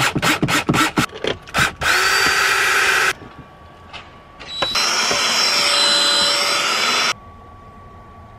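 DeWalt cordless drill/driver driving screws into a plywood cabinet wall. A rapid run of sharp clicks comes first. Then the motor whirs for about a second, and again for about two and a half seconds, each run starting with a short rising whine.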